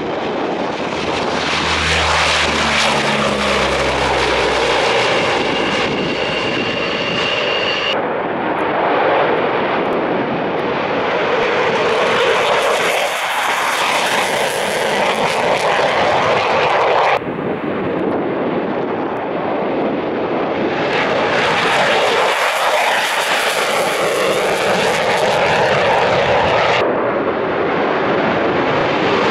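A run of military aircraft taking off, in separate shots with abrupt cuts between them. First a P-3C Orion's four turboprop engines at takeoff power, with a steady propeller drone, as it climbs away. Then fighter jets, including an F-15 and an F-16, taking off with loud jet-engine noise that swells as they pass.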